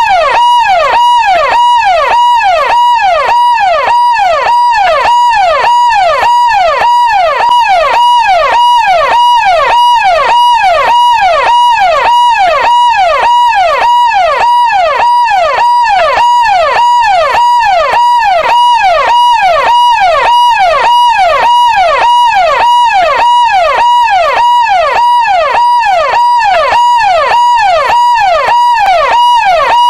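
Electronic police siren sounding loudly in a fast, unbroken cycle: each note holds a high pitch, then drops and sweeps quickly back up, over and over at an even rate.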